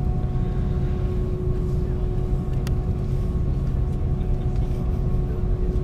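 Steady cabin noise of a parked Airbus A330-200 airliner: a low rumble with a constant whine over it, the aircraft's air and power systems running at the gate. A faint click about two and a half seconds in.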